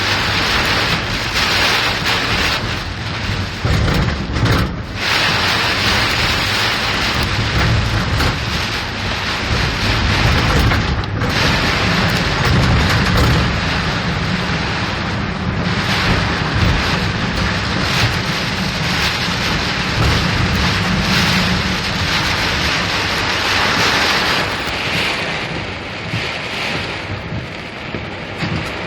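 Heavy rain and rushing water noise from a car being driven through a flooded street in a downpour, with a low steady rumble of engine and road underneath.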